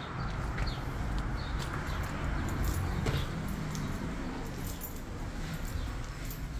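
Footsteps on a wooden floor with low rumble from the hand-held phone, scattered with small clicks and a few short high squeaks.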